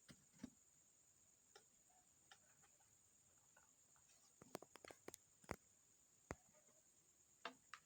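Near silence with a few faint clicks and taps, most of them in a quick cluster just past the middle, over a faint steady high-pitched whine.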